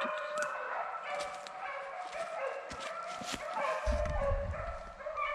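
A pack of deer hounds baying on the run, many overlapping voices calling continuously as they chase a deer. A low rumble sets in near the end.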